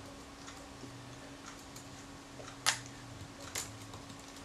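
Small metallic clicks and ticks of tweezers and tiny steel parts on a Kodak Retina IIIc camera's film advance shaft, as its screw, gear and washer are worked loose. There is one sharper click about two and a half seconds in and a lighter one about a second later, over a faint steady hum.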